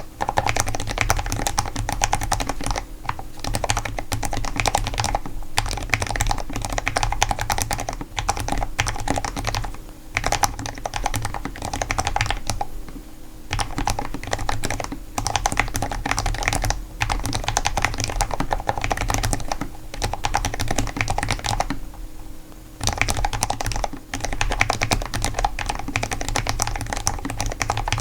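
Typing on a Cherry Xtrfy MX 10.1 LP 8K low-profile mechanical keyboard: rapid, continuous keystroke clicks in long runs, broken by a few brief pauses.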